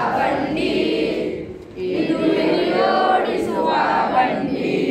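A group of schoolchildren singing a Kannada song together in unison, in two phrases with a short break about two seconds in.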